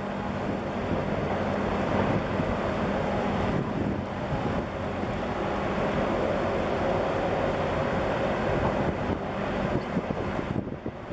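Wind buffeting the microphone over a steady low hum from a large container ship passing close by.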